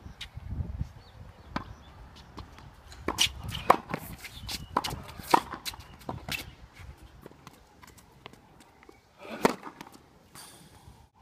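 Tennis balls being struck by racquets and bouncing on a hard court in an irregular series of sharp knocks, with footsteps and shoe scuffs between them. A louder hit comes near the end, when the player serves.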